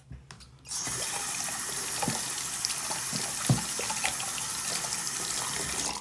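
Bathroom sink tap turned on about a second in and running steadily as hands are rinsed under the stream, with a couple of brief knocks from the hands, then turned off near the end.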